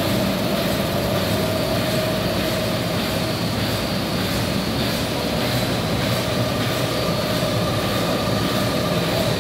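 HSC-1300 film slitter-rewinder with a servo perforating slit-in unit running at 400 metres per minute: a steady, even machine whir with a constant mid-pitched whine over a low hum.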